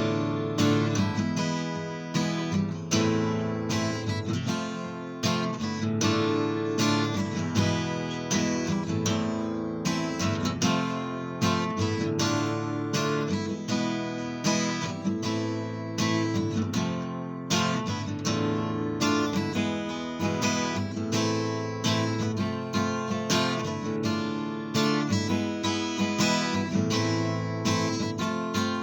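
Acoustic guitar strummed in a steady rhythm, playing a song's chords and melody as an instrumental with no vocals.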